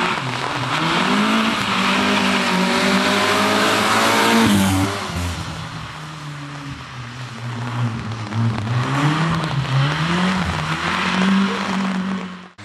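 Opel Corsa rally car's engine revving hard, its pitch climbing to a peak about four and a half seconds in, dropping, then climbing again. The sound cuts off abruptly near the end.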